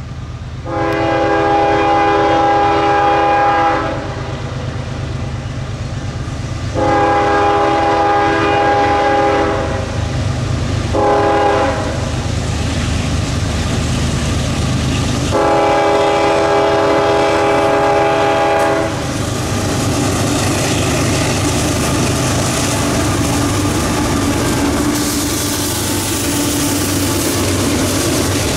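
CSX diesel freight locomotive's multi-chime air horn sounding long, long, short, long, the grade-crossing signal, over the low rumble of the engines. After the last blast the lead locomotives pass close by, with rising engine and wheel noise.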